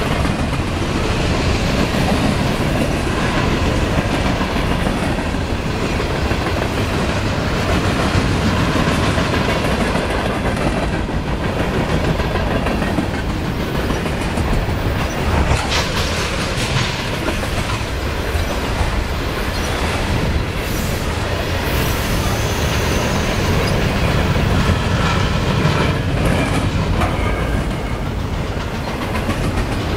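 CN freight train cars rolling past, the wheels clicking over rail joints and switches with a continuous rumble. About halfway through there is a brief, higher screech of wheels on the rail.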